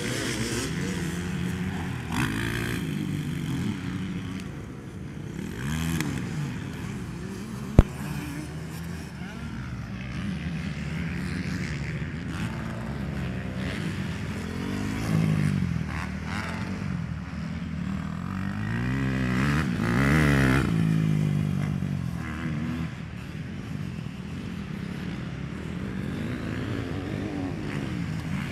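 Motocross bikes' engines revving up and down as they ride the dirt track, pitch rising under throttle and falling as riders back off and take the jumps. A single sharp click comes about eight seconds in.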